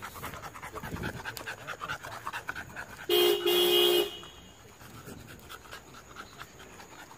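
A car horn honks in two blasts, a short one then a longer one, about three seconds in. Around it a dog pants in a quick steady rhythm.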